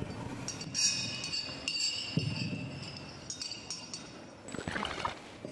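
Metal cutlery clinking against china plates: a few separate clinks, each ringing on briefly.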